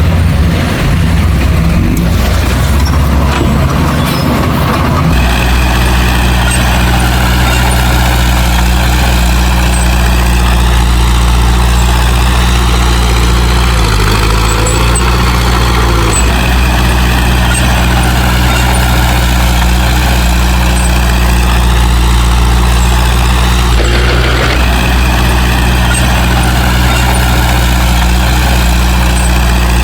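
Heavy diesel engine of earthmoving machinery running steadily, its note changing abruptly about five seconds in.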